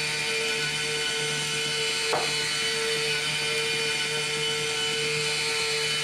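Electric motor of a vacuum-piston battery prototype running steadily while charging it, drawing the pistons down their tubes. It gives a steady mechanical whine, with one brief rasp about two seconds in.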